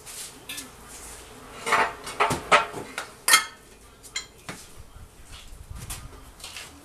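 Metal clinks and clanks as tools and parts are handled under a truck while its fuel tank is being worked loose. A quick run of sharp strikes comes about two to three and a half seconds in, the last one ringing briefly, with a few lighter knocks around them.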